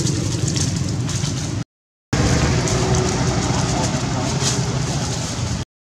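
Steady outdoor background noise with a low hum underneath, broken twice by abrupt half-second silences.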